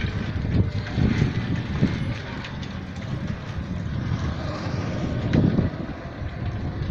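Ride noise from a vehicle travelling along a street: a steady low road rumble with wind noise, broken by several dull thumps.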